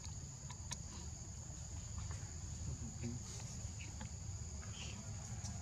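Steady high-pitched drone of insects that keeps one pitch throughout, over a low rumble, with a few faint clicks.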